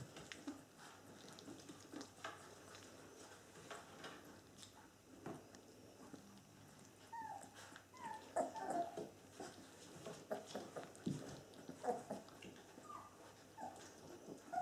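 Bernese mountain dog puppies, about three weeks old, giving short high whimpering cries as they start to play, several falling cries in a row from about halfway through. Faint scuffling of the puppies moving runs underneath.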